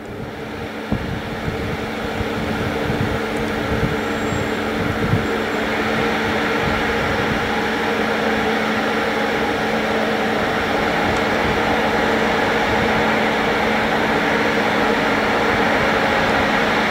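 A railway locomotive running with a steady mechanical hum and fan-like whir, growing louder over the first few seconds and then holding steady.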